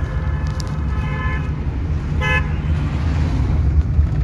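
Car engine and road noise rumbling steadily inside the cabin as the car pulls away in second gear with the clutch fully released. A vehicle horn sounds over it: a fainter honk lasting about a second near the start and a short, sharp toot about two seconds in.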